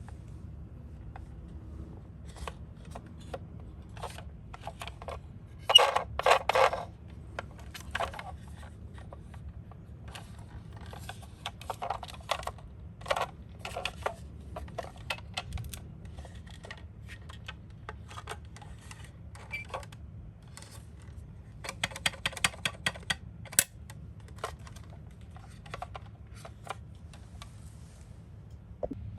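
Small die-cast toy minicars clicking and clattering as they are handled, with the loudest clatter about six seconds in and a quick run of clicks about three-quarters of the way through.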